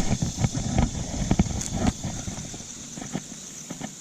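Irregular knocks and clatter of fishing gear being handled in a plastic fishing kayak, busiest in the first two seconds and then thinning out, over a steady hiss.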